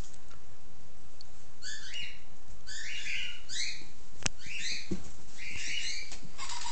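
Toy robot dog playing electronic yapping barks: a string of short, high-pitched chirpy yips, roughly two a second. There is a sharp click about four seconds in, and near the end a quick run of lower short tones.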